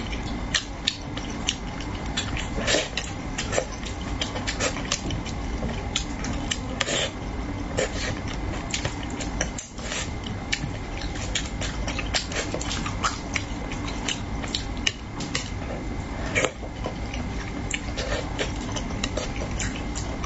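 Close-miked chewing and lip-smacking of braised carp, many irregular wet clicks over a steady low hum.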